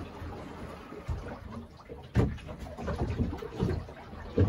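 Sea water lapping and slapping against the hull of a small boat in irregular surges, about one a second, the strongest about two seconds in.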